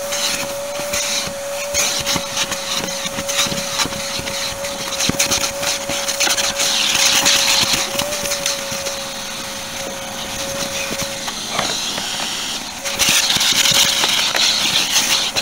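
Shop vacuum running with a steady motor whine and a hiss of suction as its hose is worked over a car seat. The whine drops out for a moment about two-thirds through, and the suction hiss grows louder near the end.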